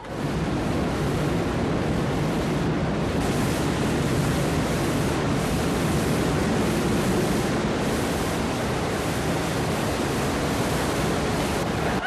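Canister vacuum cleaner switched on, then running with a loud, steady rushing noise that cuts off suddenly near the end.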